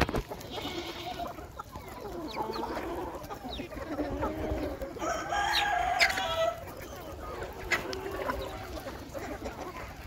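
Flock of native country chickens clucking and calling, with a rooster crowing loudly for about a second and a half around the middle.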